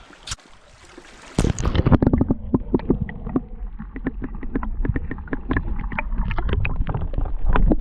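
Water splashing and sloshing as a bare hand reaches down into the creek to grab a piece of metal, with rapid irregular knocks and a low rumble. It starts suddenly about a second and a half in, after a short quiet.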